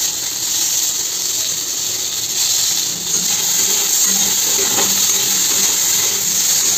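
Onions and tomatoes sizzling in hot oil in a kadhai, with a steady hiss, while a metal spatula scrapes and clatters against the pan as they are stirred.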